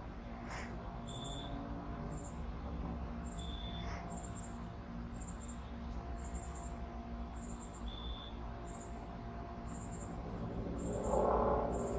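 Crickets chirping in short, high pulses about twice a second, with a lower short note every few seconds. A louder burst of sound lasting about a second comes near the end.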